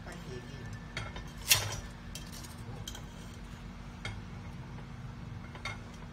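Stainless steel tongs clinking against a stainless steel pot while handling steamed lobsters: one loud clank about a second and a half in and a few lighter clicks.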